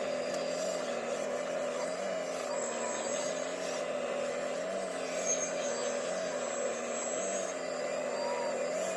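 Diesel engine of heavy earthmoving machinery running steadily under work, its pitch wavering gently up and down, with a few short faint squeals over it.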